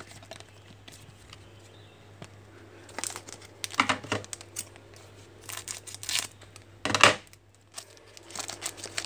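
Foil wrapper of a Panini Select soccer trading card pack being torn open and crinkled by hand. After a quiet start come several short crackling bursts from about three seconds in, the sharpest and loudest about seven seconds in.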